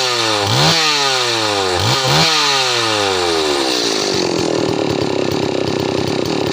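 Stihl MS 381 two-stroke chainsaw engine revved up sharply several times in quick succession, each rev falling away slowly, then settling to a steady idle about four seconds in: throttle checks while the carburettor is being set.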